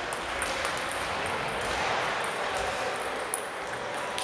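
Table tennis balls clicking irregularly off bats and tables around a sports hall, over a steady echoing hubbub, with one sharper click a little after three seconds in.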